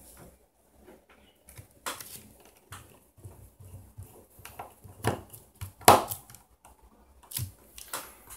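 Irregular small clicks and taps of a precision screwdriver and tiny screws against the phone's plastic frame and a plastic parts box as the back frame is screwed together, with a sharper click about six seconds in.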